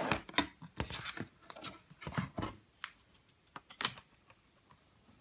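Back cover of a Samsung Galaxy tablet being pressed and snapped back into place by hand: irregular sharp clicks and short scraping rubs.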